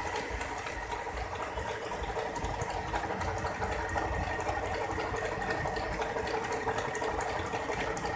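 Usha Janome Lotus sewing machine running steadily, stitching a picot stitch through cloth.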